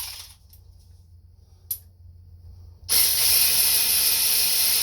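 12-volt cordless 3/8-inch ratchet's motor running steadily, spinning a nut down; it starts about three seconds in after a brief click.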